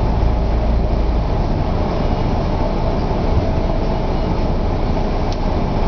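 Steady running noise of a car on the move heard from inside the cabin: engine and tyre-on-road rumble, with no change in pace.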